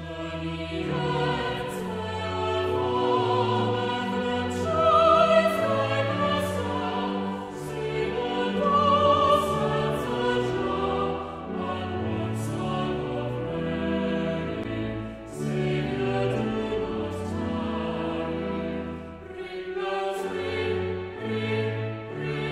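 Choir singing a carol, several voice parts in harmony.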